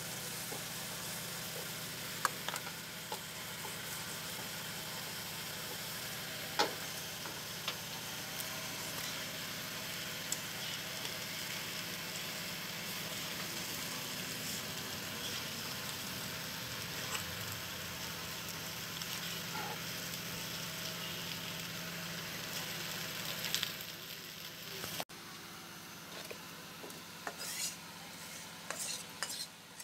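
Rohu fish pieces frying in oil in a black two-handled pan with a steady sizzle, while a metal spatula stirs them with scattered scraping clicks against the pan. The sizzling stops abruptly near the end, leaving only faint clicks.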